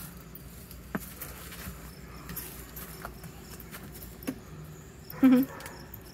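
Crickets chirping in a faint evening chorus, a steady pulsing trill. A few soft knocks are scattered through it, and a short, loud pitched call cuts in once about five seconds in.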